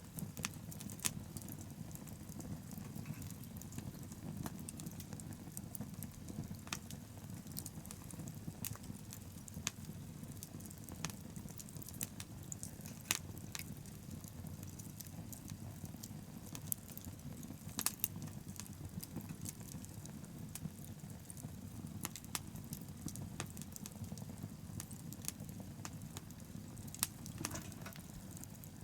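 Wood bonfire burning: irregular sharp crackles and pops over a steady low rumble of flame.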